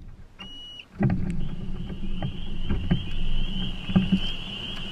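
Small aluminium boat's outboard motor running under way, with a steady hum, a steady high whine and scattered knocks. A short electronic beep sounds about half a second in, before the motor sound comes up.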